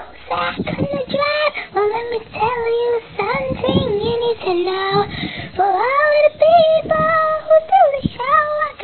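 A child singing a song unaccompanied in a high voice, in short sung phrases with some held notes.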